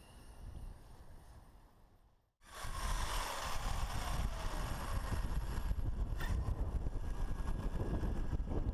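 Faint sound of an electric RC monster truck driving off, fading out, then a sudden cut to wind buffeting the microphone, with a faint whine falling in pitch under it.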